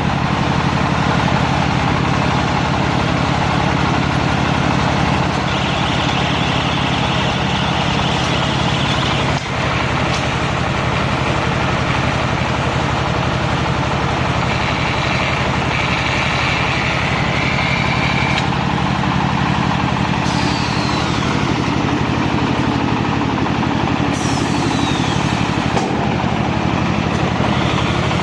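Silage baling machine running, a loud steady mechanical drone with a higher whine that comes and goes, and two short falling whines in the second half.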